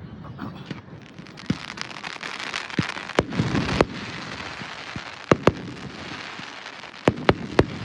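Fireworks crackling overhead: a steady crackle with a dozen or so sharp pops scattered through it.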